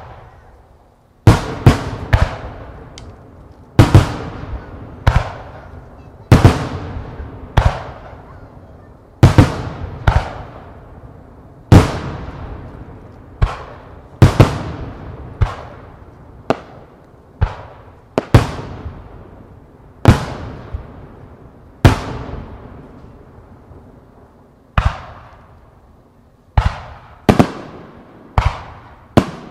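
Aerial firework shells bursting one after another, about twenty sharp bangs coming every second or two, each trailing off in a long echo. There is a brief lull about two-thirds of the way through, then a quicker run of bursts near the end.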